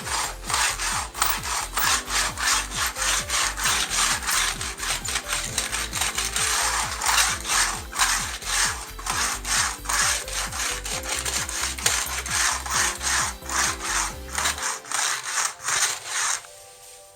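Rapid, even back-and-forth strokes of a hand tool sawing or rasping through material, about three a second, stopping about 16 s in, over soft background music.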